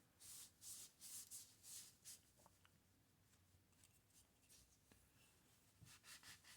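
Faint rubbing strokes on a glossy-painted typewriter body panel, about half a dozen quick strokes, then a pause, then a few more near the end, working at a dried whiteout stain that is not coming off easily.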